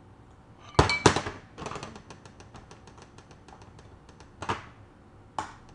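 A can of sweetened condensed milk being opened: two sharp metal knocks about a second in, then a quick run of evenly spaced clicks, about six a second, and two more sharp clicks near the end.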